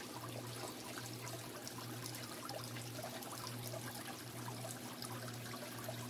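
Faint, steady trickle of water from a paludarium's waterfall splashing into the tank, over a low steady hum.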